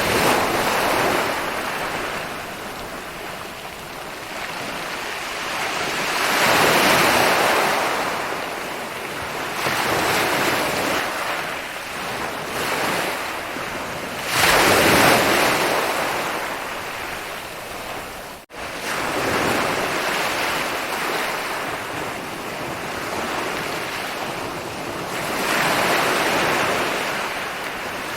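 Ocean waves rolling in and breaking on a beach, swelling and easing every few seconds, with the biggest surge about halfway through. The sound cuts out for an instant just after the middle.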